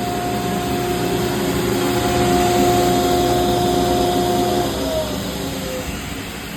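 INMES IM 300PL double miter saw's blade motors running with both blades spinning free, a steady whine over a broad rushing hum. About two-thirds of the way through the whine cuts off and slides down in pitch as the overall level drops.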